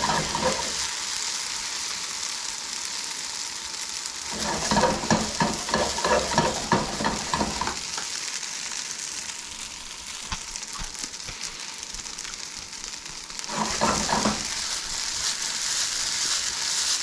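Spaetzle sizzling in hot fat in a frying pan, a steady hiss, being crisped and dried out. It is stirred and tossed with clattering for a few seconds starting about four seconds in, and again briefly near the end.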